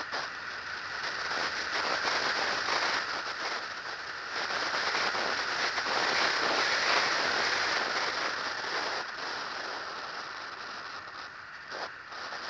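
Airflow rushing over an onboard camera's microphone on an RC glider in flight, a steady hiss that swells through the middle and eases near the end.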